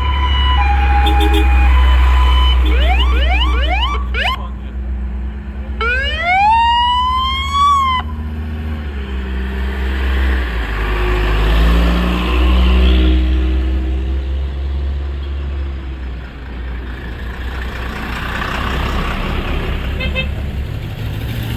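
Low rumble of vintage vehicle engines running, with a siren sounding several quick rising sweeps a few seconds in, then one longer rising wail that cuts off about eight seconds in.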